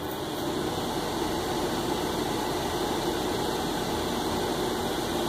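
Microwave oven running: a steady hum of its fan and magnetron, rising a little in the first second as it gets going.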